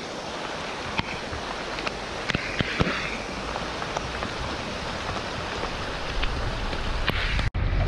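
Muddy flash-flood water rushing down a rocky wadi channel in heavy rain: a steady rushing noise with scattered sharp ticks, likely raindrops striking the camera. A low rumble builds near the end, and the sound cuts out for an instant shortly before it ends.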